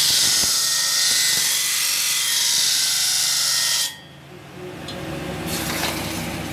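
Steel knife blank pressed against a spinning abrasive grinding wheel, a loud steady hiss of grinding that cuts off sharply about four seconds in. A quieter hiss follows as a hot blade is quenched in a tray of water.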